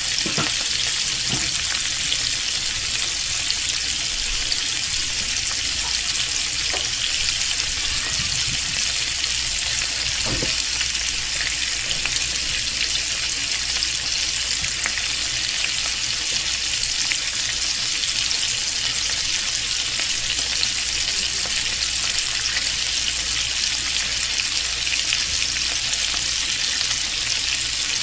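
Bacon frying: a steady, dense sizzle with fine crackling, with a few faint low knocks.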